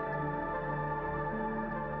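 Ambient background music of long, held notes that shift slowly from one to the next.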